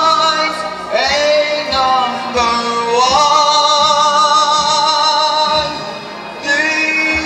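A singer holding long, wavering notes over backing music, the longest from about three seconds in until nearly six.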